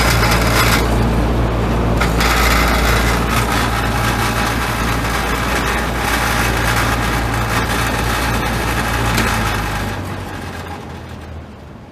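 Furuta pressure ventilation fan running with a steady motor hum and rushing air. About ten seconds in, its power is cut: the hum stops and the blades spin down, the sound fading away.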